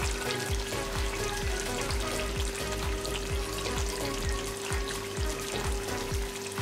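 Chicken karahi gravy sizzling in a hot wok, with background music with a steady beat and a held tone.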